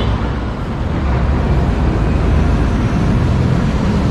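Steady driving noise from a moving RV: a low rumble of engine and tyres with an even hiss on top.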